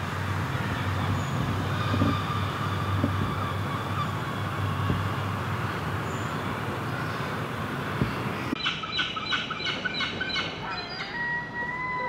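A steady low background rumble. About eight and a half seconds in it gives way to herring gulls calling: a quick run of short harsh notes, then longer drawn-out calls, each held on one pitch.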